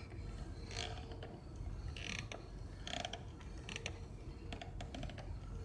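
Geely Atlas steering wheel creaking and crunching as it is worked back and forth, a faint rasp repeating about once a second.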